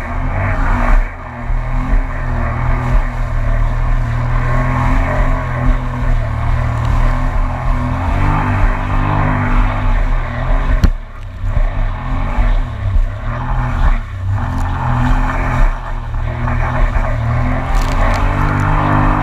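2019 Yamaha EX WaveRunner's three-cylinder four-stroke engine running under way, with water and wind rushing past. The engine pitch shifts up and down several times as the throttle changes, with a sharp click and a brief dip about eleven seconds in.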